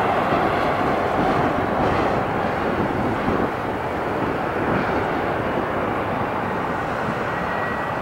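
Airbus A320 jet engines running during the landing rollout, a steady rushing noise that eases slightly about three and a half seconds in.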